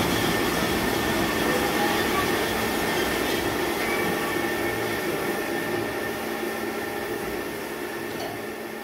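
AMADA HA-400 automatic band saw running: a steady mechanical hum with a faint whine, fading gradually.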